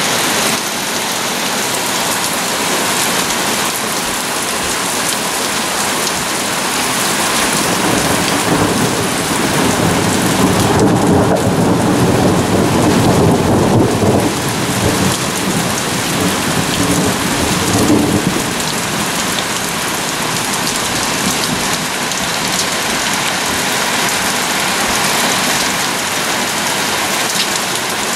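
Heavy rain pouring steadily on lawn, leaves and a pond, with a long rumble of thunder that swells up about a third of the way in and dies away about two-thirds through.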